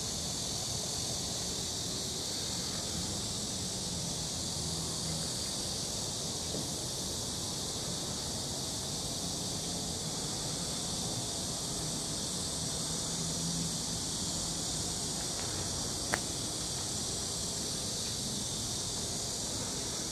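Steady, unbroken high-pitched chorus of insects, with a low steady hum underneath. One sharp click sounds about three-quarters of the way through.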